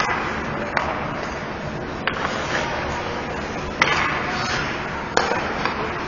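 Ice hockey play: several sharp clacks of sticks and puck over the steady scraping hiss of skates on the ice.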